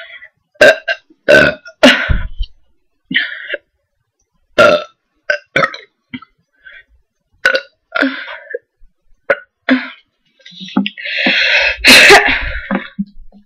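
A woman burping loudly over and over, the burps brought up by carbonated cola. A string of short burps is followed near the end by one long burp, the loudest of all.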